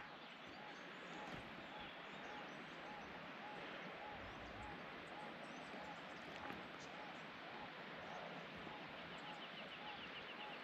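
Faint outdoor bush ambience with an animal call: a short arched note repeating steadily just under twice a second. A quick run of high ticks comes in near the end.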